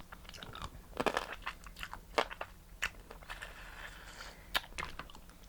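Close-miked eating: biting, cracking and chewing crab shell and meat, with scattered sharp cracks about a second apart.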